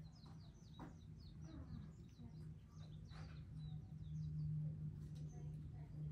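Small birds chirping in quick, high, repeated notes, faint, over a steady low hum that grows louder about four seconds in.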